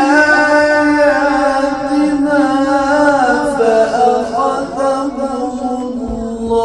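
A man reciting the Quran in a melodic, ornamented chant into a microphone. He holds long notes that wind up and down in pitch, then settles on a lower held note about four seconds in.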